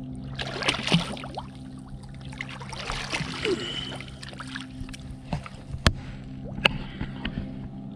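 Water splashing and sloshing against the side of a kayak as a thornback ray is released by hand at the surface and swims away. In the second half there are a few sharp knocks over a steady low hum.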